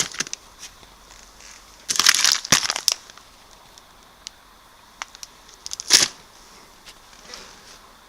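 Crinkling and rustling in short bursts, about two seconds in and again near six seconds, with brief ticks between.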